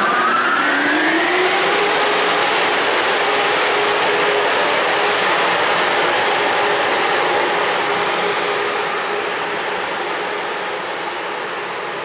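Amtrak Acela Express power car accelerating away: the whine of its electric traction drive rises in pitch over the first two seconds, then holds as a steady tone over the rush of fans and wheels. The sound fades over the last few seconds as the train pulls away.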